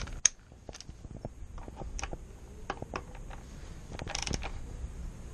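Hand tools working the motorcycle's brake caliper bolts: scattered metallic clicks and taps, with a short scraping burst about four seconds in.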